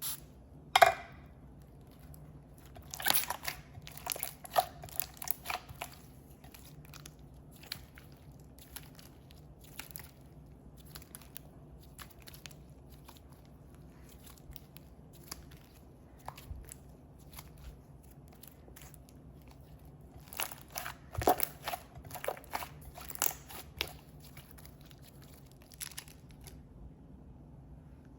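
Glossy clay slime being kneaded and stretched by hand while activator is worked in, giving scattered sharp clicks and pops of trapped air, with two busier stretches of crackling a few seconds in and about two-thirds of the way through.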